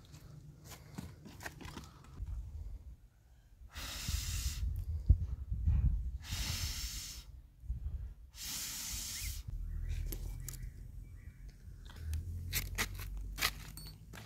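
Three long breaths blown into the firebox of a clay wood-burning hearth to kindle the fire, each a rushing hiss of about a second, with small clicks and knocks of the firewood in between.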